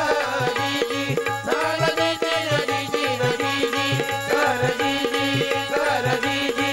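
Instrumental interlude of a Marathi powada folk ballad: a hand drum keeps a quick, steady beat under a held, sustained melody.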